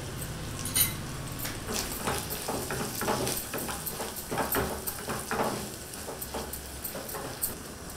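Wooden spatula stirring and scraping frying food in a small non-stick pan: a sharp knock about a second in, then strokes about twice a second over a faint sizzle.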